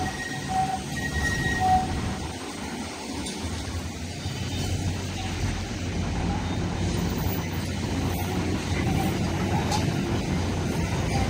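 Street traffic with a supercapacitor tram drawing nearer. Its rumble and low hum grow steadily louder from a few seconds in.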